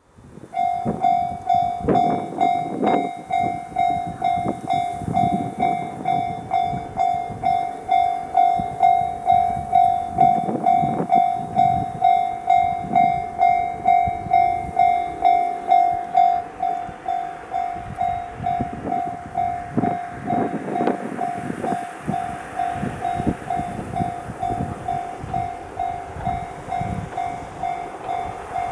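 Railway level-crossing warning bell ringing steadily, about two strikes a second, while a JR East 115 series electric train approaches, faint underneath.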